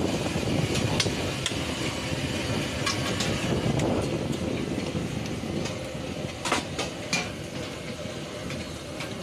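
Metal spatula clicking and scraping against a flat iron dosa griddle and steel pots as potato masala is spread onto the dosas, with a few sharper clinks near the end, over a steady low rumble.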